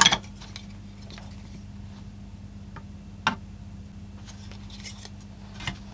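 Small tool-handling sounds over a steady low hum: a knock as a screwdriver is set down on the bench, then a sharp click about three seconds in as a metal scissor blade is pushed into the smoke detector's plastic sensing chamber, and a few faint ticks near the end. The smoke alarm itself does not sound.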